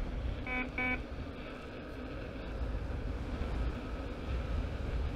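The alarm on an Inmotion V10-series electric unicycle gives two quick beeps about half a second in. A sharp stomp on the pedal near top speed sets it off, and it warns that the wheel is at its limit of power delivery. After that there is only the steady rumble and hiss of the wheel rolling.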